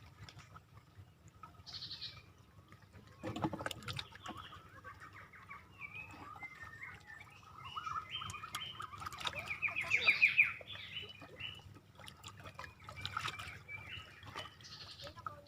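Birds calling, a run of short chirps building to a fast trill a little past the middle, over a low steady background rumble.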